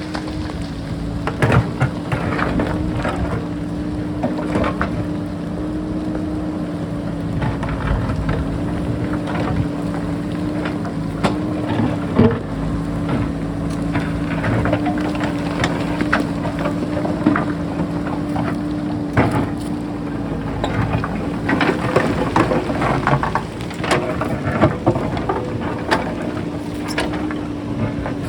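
JCB backhoe loader's diesel engine running at a steady working speed, with frequent knocks, scrapes and clatters of the bucket working into sharp rock.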